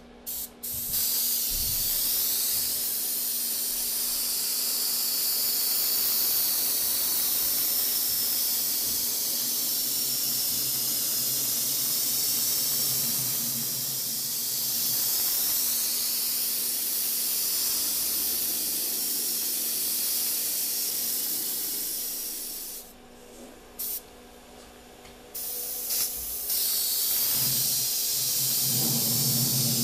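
Airbrush spraying the sunburst color coats onto an archtop guitar: a steady hiss of air and paint. Near the end the spraying stops for a few seconds, broken by two short puffs, then starts again.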